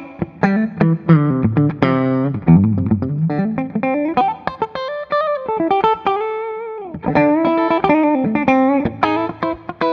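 Gibson Les Paul Special double-cut electric guitar on both P-90 soapbar pickups, clean tone with a touch of reverb, played through a Soldano Astro 20 amp. It plays a run of picked notes and chords, with one long held note in the middle that bends down and fades before the quick playing picks up again.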